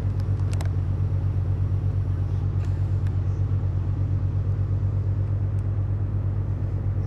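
Steady low rumble of a road vehicle running, with a few light clicks in the first second.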